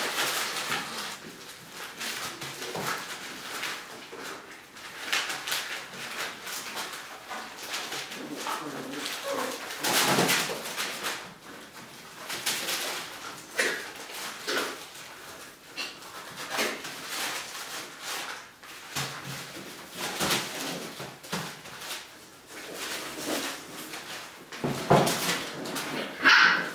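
Five-and-a-half-week-old puppies playing and wrestling, giving scattered short whimpers and yelps amid scuffling, the loudest cries near the end.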